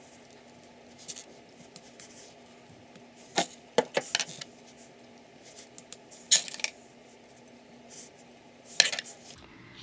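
Small plastic LEGO pieces clicking and clattering as they are handled and snapped together: a handful of short sharp taps a second or two apart, over a faint steady hum.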